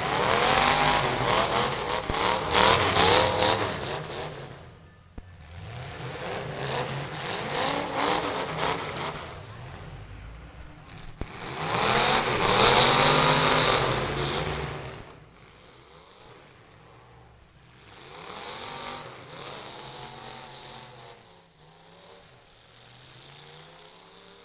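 Full-size demolition derby car engines revving hard, in three loud surges with the pitch rising and falling over the first fifteen seconds, then fainter revving. A couple of short sharp knocks come in between the surges.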